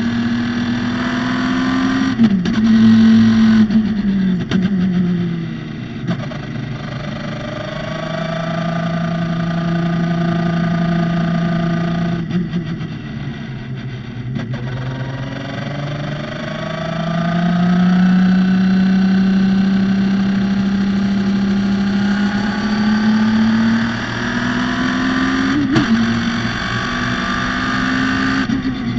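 Radical SR3 race car's motorcycle-derived four-cylinder engine driven hard on a hot lap. The engine note falls in steps through downshifts near the start and holds low for a stretch. It eases off briefly midway, then climbs and holds high before dropping again near the end.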